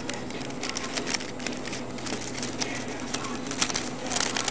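Rolling paper and cannabis rustling and crinkling between the fingers as a joint is hand-rolled, a run of small irregular crackles that grows louder near the end, over a steady low hum.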